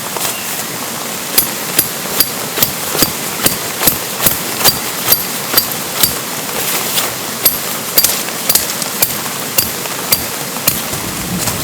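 A hammer striking metal in a fast, even rhythm, about two to three blows a second with a slight ring, over the steady hiss of rain.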